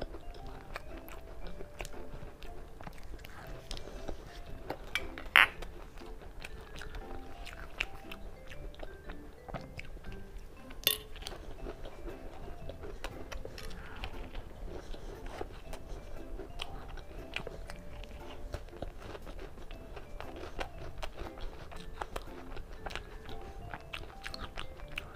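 Close-up chewing and crunching of macarons with crisp almond shells, many small crunches, over soft background music. Two sharp clicks stand out, about five and eleven seconds in.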